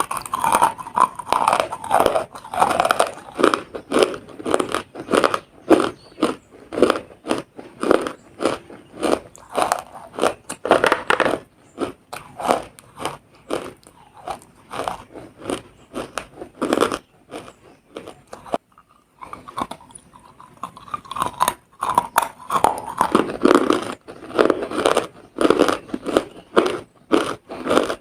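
Close-up biting and chewing of wet, extra-crunchy Nakumatt: dense, irregular crunches and crackles, with a short pause about two-thirds of the way through before the chewing resumes.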